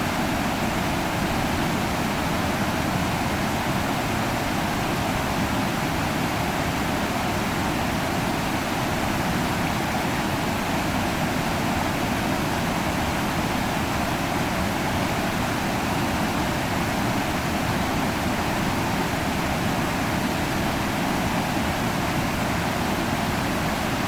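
River water rushing, a steady, unchanging noise.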